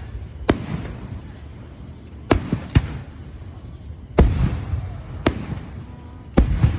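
Aerial fireworks shells bursting overhead: six sharp bangs at uneven intervals, each trailing off in a rolling rumble.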